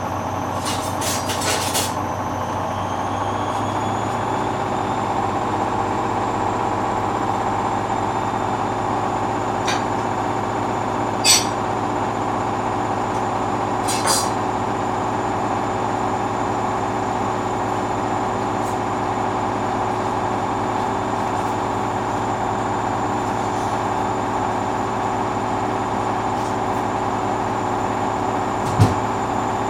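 Hoover washing machine's drum motor spinning in the final spin, its whine rising over the first few seconds and then holding steady, with a few short knocks.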